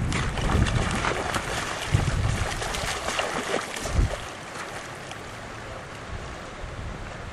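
Wind buffeting the microphone over running river water, with a hooked fish thrashing and splashing at the surface about four seconds in; after the splash the noise drops to a quieter steady wash.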